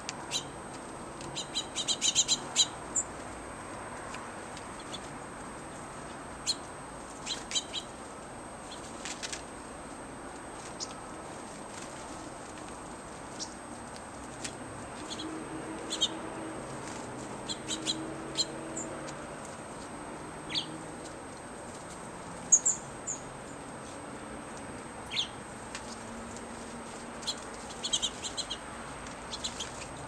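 Small songbirds giving short, high chirps, scattered in quick little clusters, with brief wing flutters.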